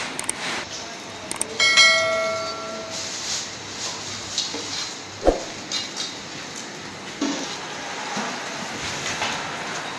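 A large aluminium cooking pot is knocked once and rings for about a second. Scattered light knocks and handling sounds follow.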